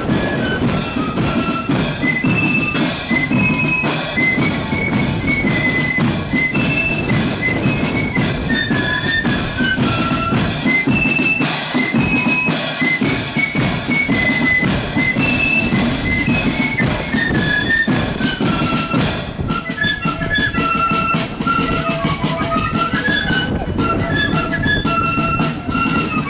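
Marching flute band playing a march tune: flutes carry a high melody over a steady drum beat.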